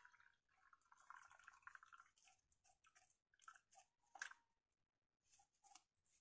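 Near silence with faint handling noises: soft scrapes and scattered clicks as a bamboo tube of cooked rice is worked open and emptied, with one sharper knock a little past four seconds in.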